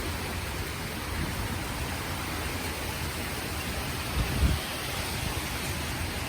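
Hurricane wind driving heavy rain: a steady hiss of rain, with gusts rumbling on the microphone, the strongest about four seconds in.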